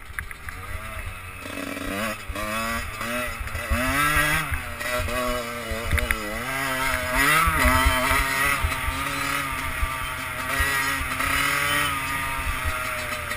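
Husqvarna enduro motorcycle engine revving up and down over and over as the rider accelerates, shifts and backs off over rough ground, getting louder from about a second and a half in. Heard from a helmet camera, with wind rumble on the microphone.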